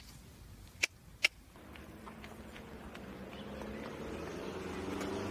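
Three sharp clicks, then an engine's steady hum that grows gradually louder from about a second and a half in.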